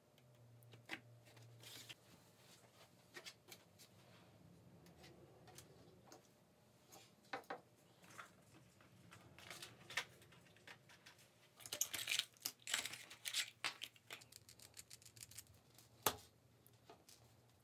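Faint handling noises on a workbench: scattered light clicks and rustles, then a run of plastic crinkling about twelve seconds in, and one sharp click near the end, over a low steady hum.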